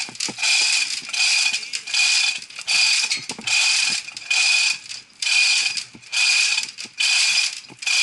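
Manual chain hoist (chain fall) ratcheting as its hand chain is pulled hand over hand to lower a heavy load. Each pull gives a burst of clicking about half a second long, in a steady rhythm a little faster than once a second.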